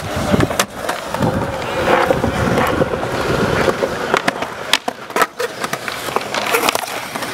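Skateboard wheels rolling over concrete in a steady rough rumble, broken by several sharp clacks of boards striking the ground.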